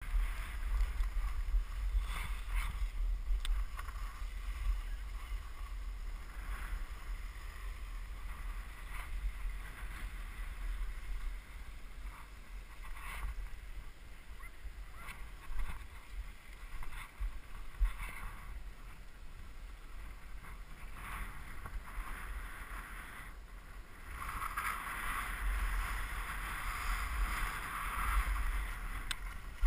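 Skis sliding and scraping over snow with a swishing hiss that comes and goes through the turns, over a steady low rumble of wind on the action camera's microphone. The scraping grows louder and denser near the end, in churned-up snow.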